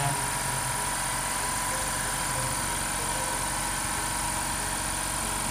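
Steady, unchanging hum of running screen-laminating machinery, with a constant high whine over it.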